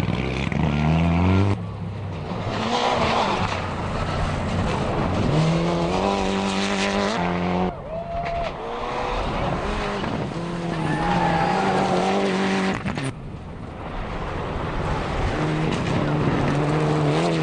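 Rally cars accelerating flat out on gravel: the engine note climbs and steps up through the gears in several hard runs, over a haze of tyre and gravel noise. The runs break off abruptly a few times.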